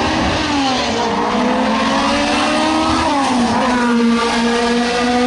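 Formula 2 race car's 2-litre BMW four-cylinder engine accelerating up the hill at high revs. It climbs in pitch, drops sharply at an upshift about three seconds in, then pulls again.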